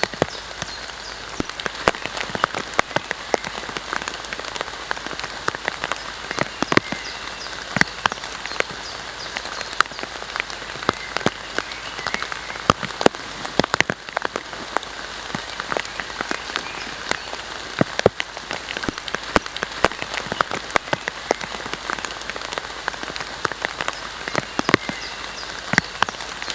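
Heavy rain falling, an even hiss with many separate drops striking close by in sharp, irregular clicks.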